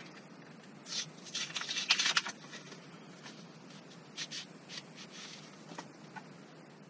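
Cardboard and paper packaging rustling and scraping as items are handled and lifted out of a small box, in two bouts: a louder one about a second in and a shorter one about four seconds in.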